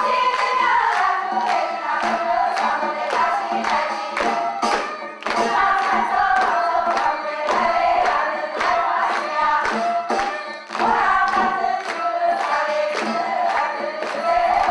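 A group of voices singing a Korean folk song in chorus, over a steady beat of sharp strokes.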